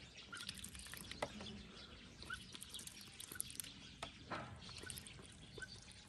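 A call duck dabbling with its bill in a basin of water as it eats mealworms: faint splashes and bill clicks. A few short, faint bird chirps come now and then.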